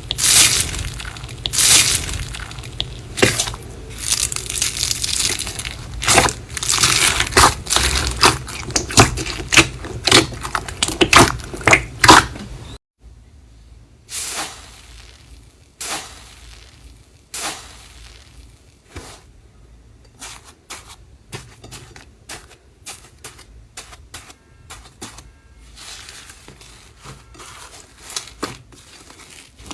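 Slime being squeezed and pressed by hand, with dense crackling and popping. After a sudden break about 13 seconds in, it goes on quieter, with sparser pops and clicks.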